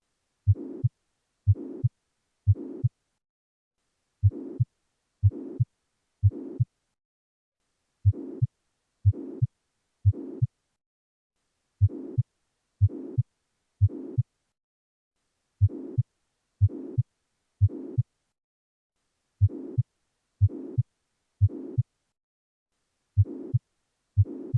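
Heartbeat heard through a stethoscope: regular beats, each carrying a blowing whoosh over the thuds, in groups of three about a second apart with short pauses between, a murmur of mitral regurgitation.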